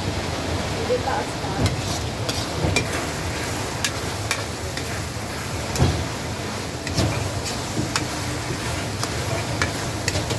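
Food frying in a pan while a metal utensil stirs it, with many short sharp clicks and scrapes against the pan over a steady sizzling hiss.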